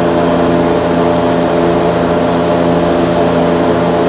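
A steady machine hum made of several held tones, unchanging in pitch and level.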